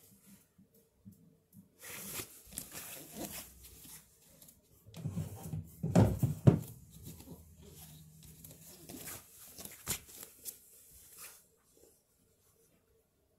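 Rustling and knocking of things being moved and handled, in irregular bursts, with the heaviest knocks about six seconds in; the sounds stop about eleven seconds in.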